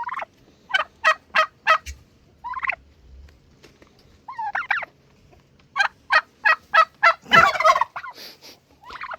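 Domestic turkeys calling: two runs of short repeated notes, a few single calls between them, and a louder, rougher burst about seven seconds in.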